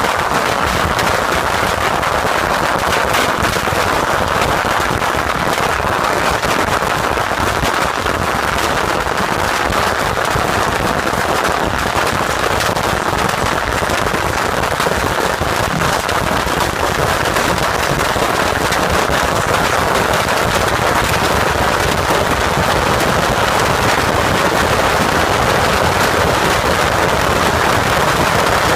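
Yanshui beehive rocket battery firing, with masses of bottle rockets and firecrackers going off in a dense, unbroken crackle that grows slightly louder in the later part.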